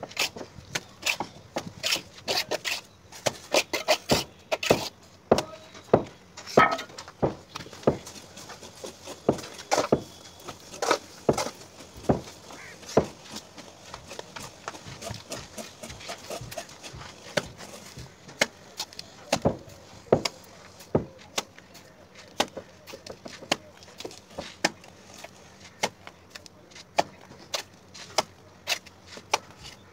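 Masons' steel trowels clinking and scraping against metal mortar pans, and cement plaster being slapped onto a brick wall: irregular sharp clicks and knocks, several close together at times.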